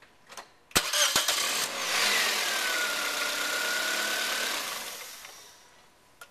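Car engine cranked by its starter motor, with a sharp click as the starter engages, then catching and running with a whine that falls in pitch and then holds steady. It dies away about five seconds in.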